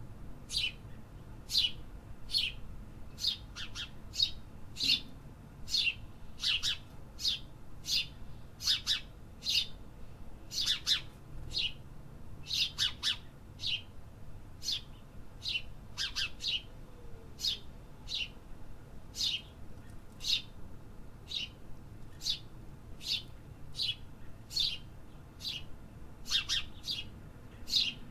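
Bird chirping: short, sharp, high chirps repeated about once or twice a second, sometimes in quick pairs.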